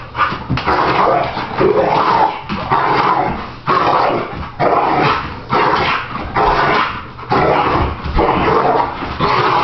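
American pit bull growling and barking roughly in play while wrestling, in a string of loud bursts about one a second.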